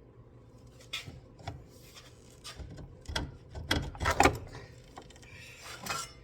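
Scattered metal clanks and knocks of tools and parts being handled during front-suspension work on a car. About six separate knocks, the loudest a pair about four seconds in.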